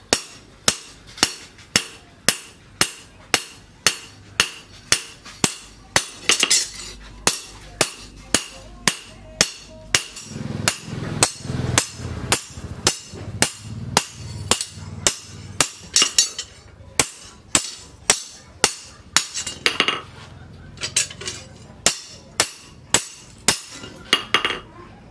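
Hand hammer striking a leaf-spring steel billhook blade on a round steel post anvil: steady, ringing metal-on-metal blows, about two a second.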